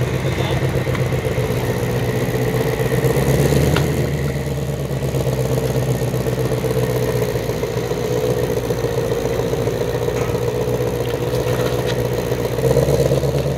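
A 2020 Ford Shelby GT500 prototype's supercharged 5.2-litre V8 idling steadily through its quad exhaust tips. It swells briefly louder a little over three seconds in and again near the end.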